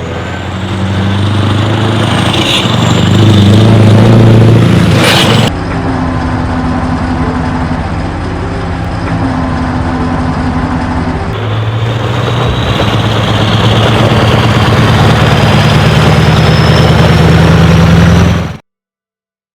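Heavy truck engine running and revving, in pieces that change abruptly twice, then cutting off suddenly near the end.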